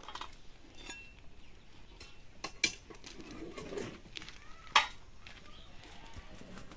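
Metal serving trays clanking as they are handled: two sharp metallic clanks, about two and a half seconds in and again near five seconds, among lighter clicks.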